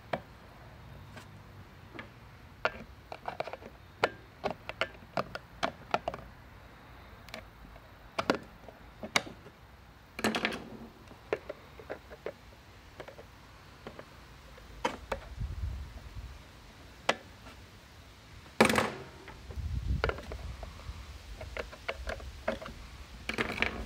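A metal hand tool clicking and scraping at the axle end and push-on spring washer in the hub of a plastic ride-on toy wheel, as the washer is worked loose. The clicks come irregularly, in clusters, with one louder clack past the middle and some dull handling knocks of the wheel.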